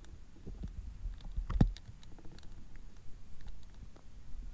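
Scattered light clicks and taps of small parts being handled, with one sharper knock about one and a half seconds in.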